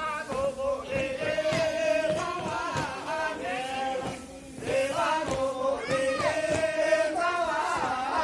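Music with male voices singing a melody of long held notes that slide between pitches.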